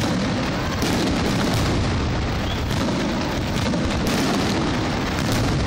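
Aerial fireworks shells bursting in a dense, unbroken barrage, deep booms running together with crackling.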